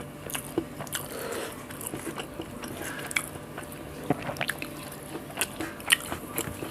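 Close-up mukbang eating sounds: a person chewing and biting a mouthful of rice and egg omelette with chutney, with irregular wet mouth clicks and smacks, over a faint steady hum.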